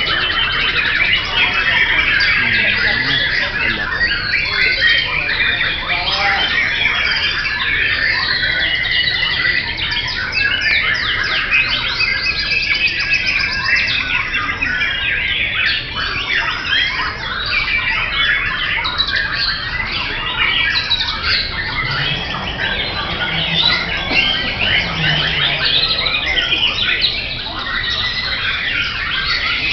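Several caged white-rumped shamas (murai batu) singing at once: a dense, unbroken chorus of loud whistles, fast trills and harsh squawky notes overlapping one another.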